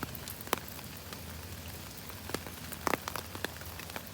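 Steady rain falling, with irregular sharp taps of larger drops landing close by, the loudest about half a second in and just before three seconds in.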